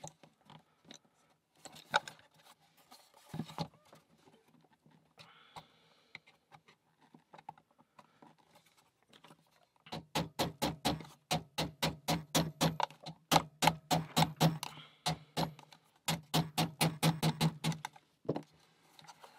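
Small hammer tapping laser-cut plywood puzzle pieces into place on a wooden box. Quiet handling clicks come first, then about halfway in rapid light taps, three or four a second, in two runs with a short pause between.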